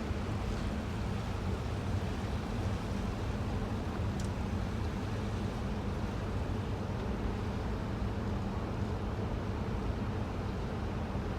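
Cruise ship under way: a steady low rumble with wind and water noise.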